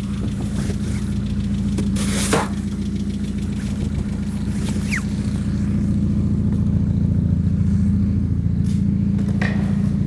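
Mazda Miata's four-cylinder engine idling steadily while a snow shovel scrapes packed snow around the front wheel in a few short strokes, the loudest about two seconds in.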